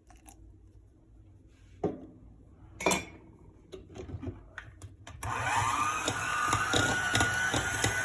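A few light knocks, then about five seconds in an electric mixer switches on: its motor whine rises and settles into a steady run as it beats the cake batter.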